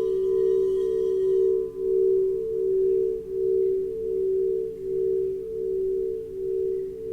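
Singing bowl ringing on with a pure low hum, its sound swelling and fading in a slow, even wobble about every two-thirds of a second; its higher overtones die away about a second and a half in.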